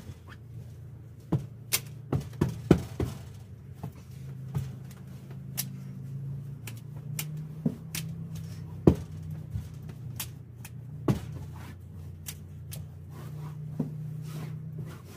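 Hands handling things on a caravan bed, making scattered sharp clicks and knocks, about fifteen in all and irregularly spaced, over a steady low hum.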